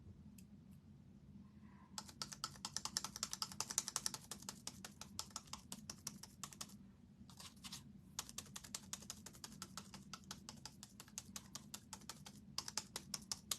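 Rapid light tapping of a paint sponge dabbing paint onto a wooden star, a quick run of taps starting about two seconds in, with a couple of brief pauses midway.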